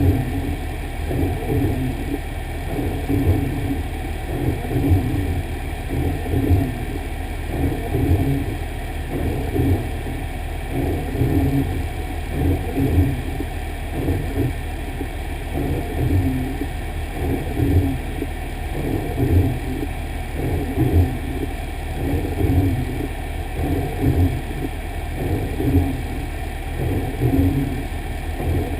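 Fire engine running as it drives, heard from inside the cab: a steady rumble with a swell that comes back about every second and a half.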